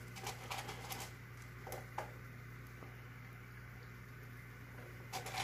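Light clicks and taps of sinking food pellets being handled and dropped into the aquarium: a cluster in the first second, a couple around two seconds in, and more near the end, over a steady low hum.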